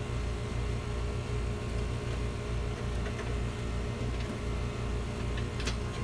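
Trane XL16i single-stage outdoor air-conditioning condenser running: a steady low hum with an uneven throb, and a sharp click near the end.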